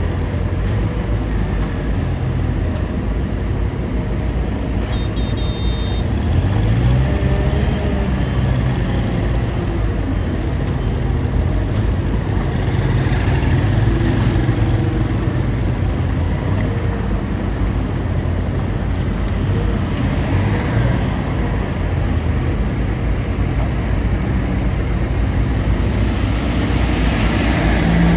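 Bulldozer's diesel engine running with a steady low rumble, its revs rising and falling now and then; a brief high-pitched beep about five seconds in.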